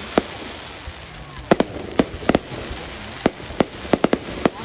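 Fireworks going off: about a dozen sharp bangs at irregular intervals, several in quick pairs, over a steady background hiss.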